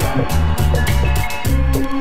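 Background music: an instrumental track with bass, a drum kit keeping a steady beat and sustained keyboard or organ notes.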